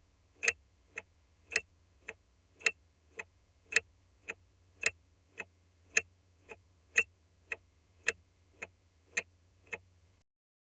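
Car turn-signal indicator ticking: sharp clicks about twice a second, alternating louder and softer in a tick-tock, stopping shortly before the end.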